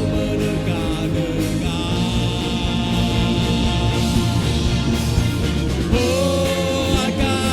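A rock band playing live, a full band with a steady beat and held, wavering lead lines, in an instrumental passage.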